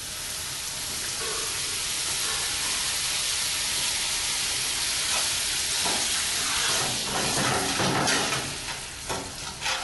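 Water poured into a pan of hot oil holding fried mustard seeds, dals, peanuts and grated raw mango, setting off a loud sizzling hiss that starts suddenly and holds steady. Scraping stirring strokes come in over the last few seconds.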